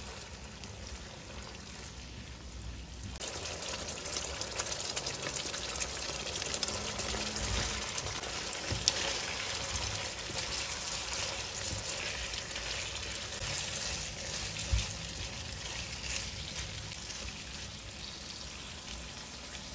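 Sweet and sour sauce sizzling and bubbling in a non-stick wok while vegetables and fried chicken pieces are stirred and tossed through it with a silicone spatula. The sizzle grows louder about three seconds in, with a couple of sharper knocks along the way.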